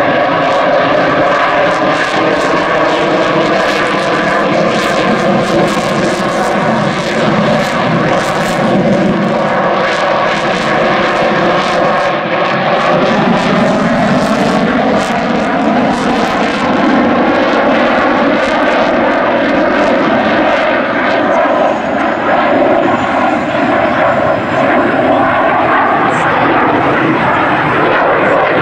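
Jet noise from an F-22 Raptor's twin Pratt & Whitney F119 turbofans during a display flight: a loud, continuous noise whose tones slowly drift in pitch as the jet manoeuvres.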